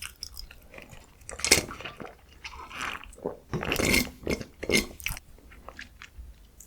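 A person chewing and biting food: irregular wet smacks and clicks of the mouth, with louder clusters near the middle.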